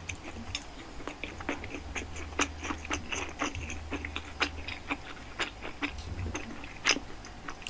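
Close-miked chewing of a soft-bunned burger: an irregular run of wet mouth clicks and smacks.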